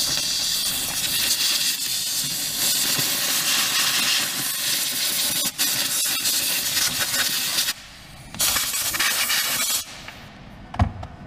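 Aerosol cleaner spray hissing onto a rear brake hose connection: one long spray of about seven seconds, then a short second burst. A knock follows near the end.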